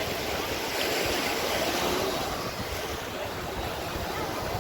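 Sea waves washing onto the beach in a steady surf wash that swells about a second in and eases off, with faint voices in the background.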